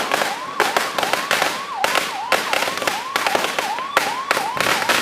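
A sinturon ni Judas, a long belt-string of firecrackers, going off in a rapid, irregular crackle of sharp bangs. Behind it a wavering tone rises and falls about three times a second.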